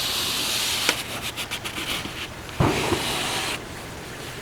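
Rubbing and wiping inside a pickup truck door's window channel to clear out dust: a steady scratchy hiss, broken by several light clicks and a knock a little past halfway.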